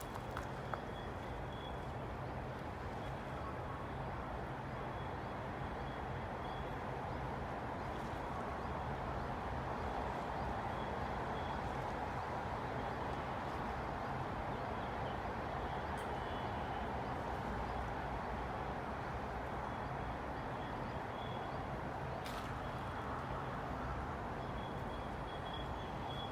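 Steady rush of flowing water, swelling slightly in the middle.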